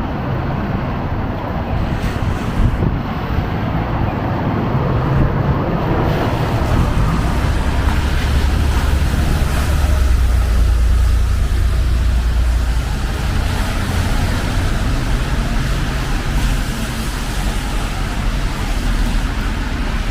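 Street traffic in steady rain: an even hiss of rain and wet road noise, with a deep rumble of a heavy passing vehicle that swells from about a third of the way in, peaks around the middle and fades.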